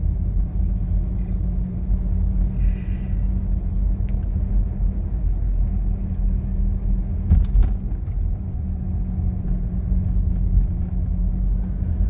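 Steady low road rumble of a car driving, heard from inside. A brief knock or two comes about seven and a half seconds in.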